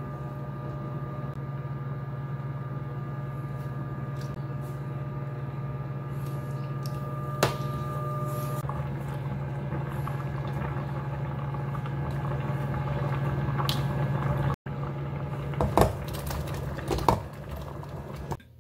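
A pot of broth at a rolling boil over a steady kitchen-appliance hum, with a sharp metallic clink about halfway through and several louder clinks and knocks against the stainless steel pot near the end.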